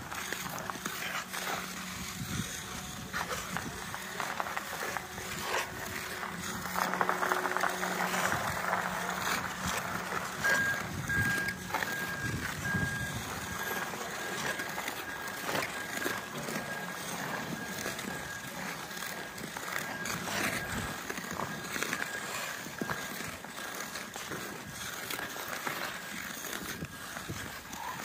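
Ice skate blades gliding and scraping on rink ice: a steady rushing noise broken by many short scrapes. A low steady hum lasts for roughly the first eight seconds.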